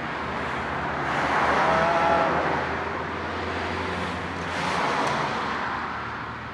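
Road traffic passing: a broad rush of tyre and engine noise that swells and fades, loudest about two seconds in and again around five seconds.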